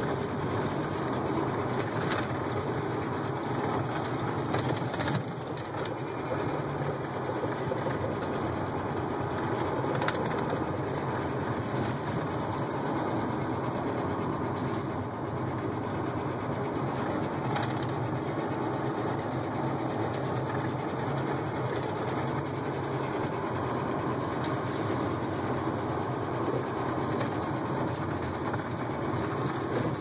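A truck driving, heard from inside the cab: steady engine and road noise with a continuous mechanical rattle, the unexplained noise the owner is trying to track down.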